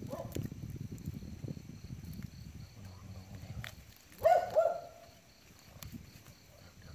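Wet water plants and a fishing line tangled around a hooked snakehead rustle and crackle as they are pulled apart by hand. A dog barks twice, loudly and briefly, about four seconds in.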